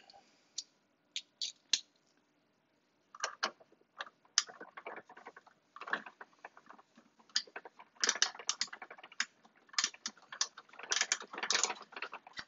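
Hard plastic parts of an Omnibot 5402 toy robot's arm being handled and pressed back into place by hand: irregular clicks, taps and scrapes, sparse over the first few seconds and busier from about eight seconds in.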